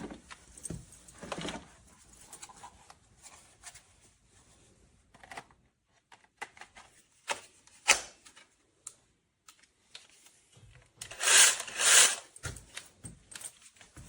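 Scattered clicks and light knocks of objects being handled, with two louder scraping or rustling bursts near the end.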